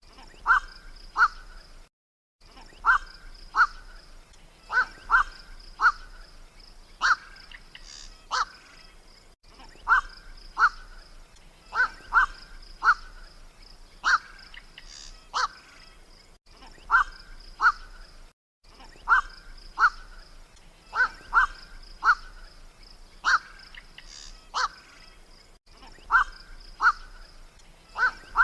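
Black-crowned night heron calls: short, harsh 'kwak' notes repeated in pairs and small clusters about every second, played as a looped bird-lure recording. The loop is cut by a few brief silent dropouts.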